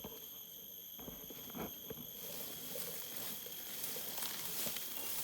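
Soft rustling and a few light taps, with a steady high, thin insect-like tone behind.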